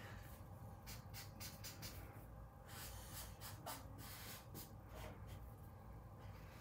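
Faint rubbing and scratching of a marker tip on paper in quick, irregular back-and-forth strokes as an area is colored in.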